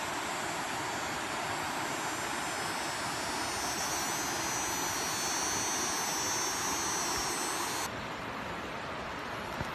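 Steady rush of a tall waterfall's falling water, with a higher shrill layer above it that cuts off abruptly about eight seconds in.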